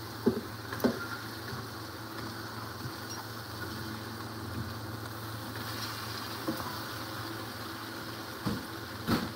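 Raw chicken pieces dropped by hand into a pot of cooked-down tomatoes and onions, giving soft thuds twice in the first second and again near the end, over a steady low hum and faint sizzle of the pan.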